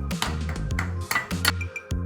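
Background electronic music with a steady, repeating beat, and a few brief noisy sounds over it in the first second and a half.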